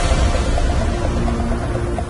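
Background music: soft held tones without a beat.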